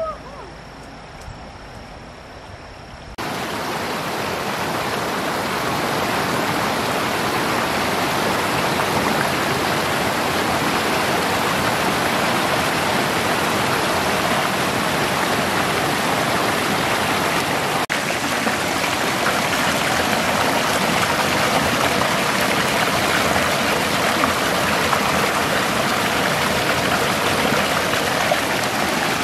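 Steady rushing of a small waterfall and stream tumbling over rocks, starting abruptly about three seconds in after a quieter opening.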